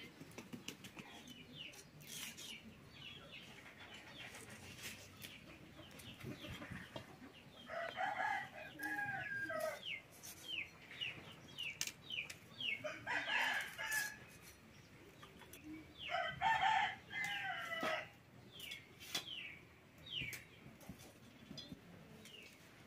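Rooster crowing three times, with short clucking calls from chickens in between.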